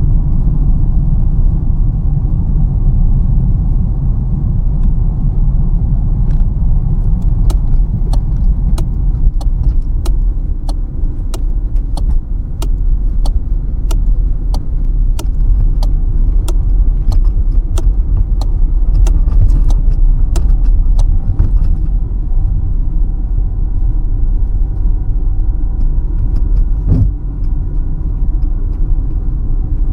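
Car cabin while driving: a steady low rumble of engine and road noise. For about fifteen seconds, from about seven seconds in, a run of evenly spaced sharp ticks comes a little under two a second, and there is a single click near the end.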